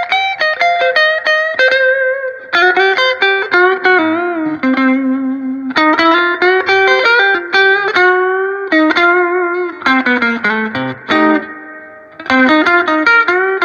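Electric Telecaster-style guitar played through a 1968 Fender Twin Reverb with a 15-inch JBL speaker, its reverb switched on. Picked single-note lines and two-note chords, some notes bent, come in short phrases with brief pauses between them.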